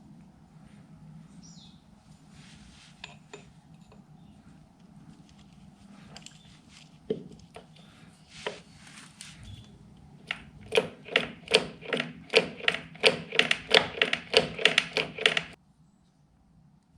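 Metal being struck with a hammer, about four ringing blows a second for some five seconds, ending abruptly, after several seconds of quieter clinks and scraping of metal parts being handled.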